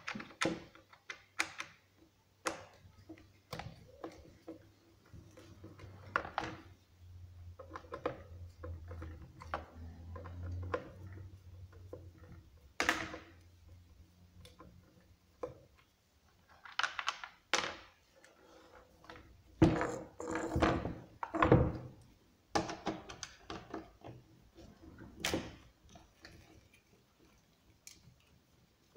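Irregular clicks, taps and knocks of a hand key and screwdriver working the screws of a chainsaw's plastic starter cover, with the saw's housing being handled; the loudest knocks come in a cluster about two-thirds of the way through.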